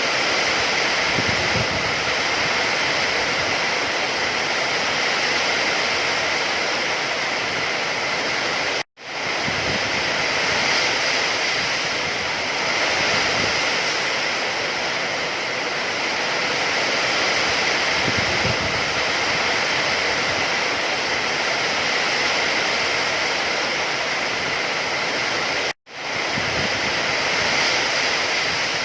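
Steady rain noise, an even dense hiss. Twice, about nine seconds in and again near the end, it cuts to silence for an instant and swells back within about a second.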